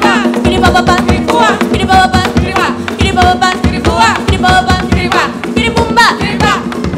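Live Colombian folk music: hand drums playing a fast, dense rhythm under voices singing short phrases that slide in pitch.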